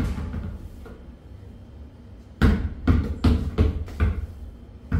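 A basketball bouncing on a tiled floor. One bounce comes at the start, then a run of about six bounces in quick succession from about halfway, the gaps shortening as the ball settles.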